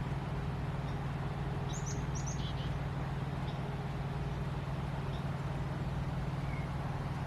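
A steady low mechanical hum, like a motor running at a constant speed, with a few short high bird chirps about two seconds in and fainter ones later.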